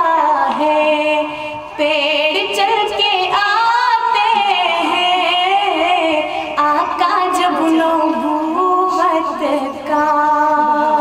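Naat sung in long, drawn-out melodic phrases, the voice holding and bending notes with a wavering ornamentation, over a lower sustained line. The voice pauses briefly about two seconds in and again near the end.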